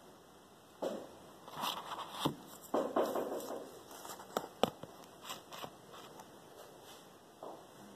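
Condiment containers being handled and set down on a table: a scattered run of light knocks, scrapes and rustles, with a sharp click a little before five seconds in as a chili-powder jar is put in place.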